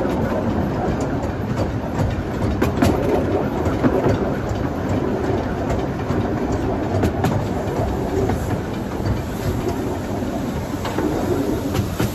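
12-inch gauge miniature railway train running along the track: a steady rumble from the coach, with sharp, irregular clicks as the wheels pass over the rail joints.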